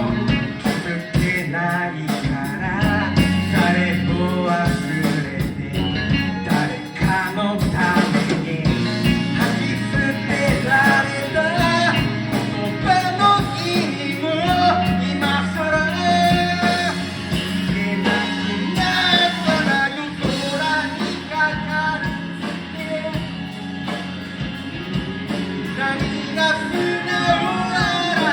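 A band playing a rock song: a singer's voice over guitar and sustained low bass notes.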